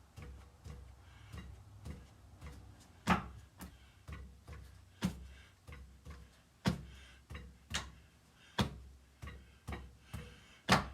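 Irregular sharp metal taps and clicks, the loudest coming every second or two, from hand work with a band-type ring compressor as a piston ring on a Caterpillar Sixty piston is eased into its groove.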